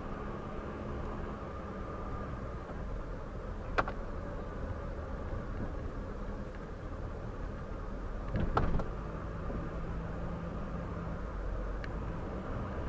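Car driving, heard inside the cabin: a steady low road and engine rumble, with a sharp click about four seconds in and a louder double knock about eight and a half seconds in.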